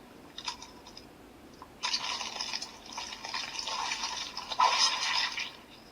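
Sound effect from the CSM Century King Sun Driver toy belt's speaker, the sword being drawn in grasshopper-mutant mode: a few faint clicks, then a noisy, hiss-like effect starting about two seconds in and lasting about three and a half seconds.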